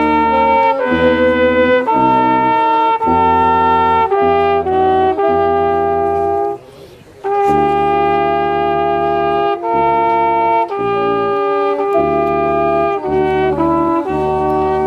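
Brass band playing slow, sustained chords of held notes with a deep bass line, pausing briefly about halfway through.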